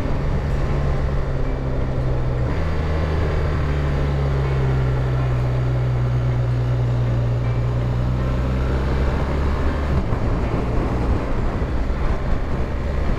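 BMW R 1200 RS boxer-twin motorcycle engine running under way, with wind and road noise. The engine note rises about two and a half seconds in and drops back about ten seconds in.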